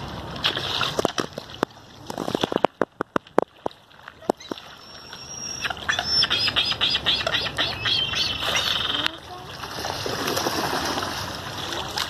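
A flock of American coots, ducks and Canada geese calling on the water at feeding time. A quick run of sharp clicks comes between about two and four seconds in, then many overlapping calls for a few seconds, then a noisy stretch.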